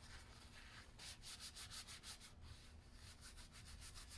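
Faint quick scraping strokes by hand on the engine block, several a second, in two runs: one starting about a second in and another from about three seconds in.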